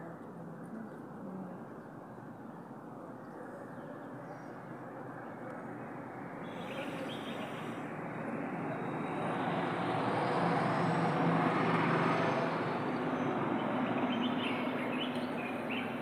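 A motor vehicle passing: a rushing engine-and-tyre noise that swells to a peak about two-thirds of the way through and then fades. A few short high chirps come near the end.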